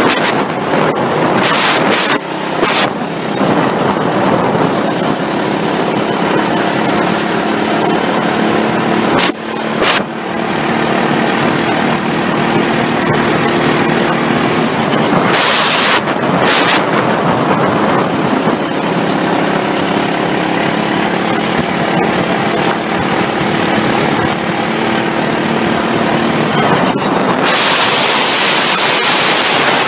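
Kart engine running at racing speed, heard from on board through a heavy rush of wind on the microphone, with a few louder gusts of wind noise, the longest near the end.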